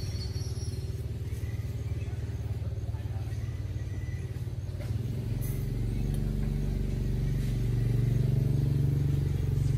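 Low, steady engine rumble of street traffic, swelling louder about halfway through as a vehicle comes near.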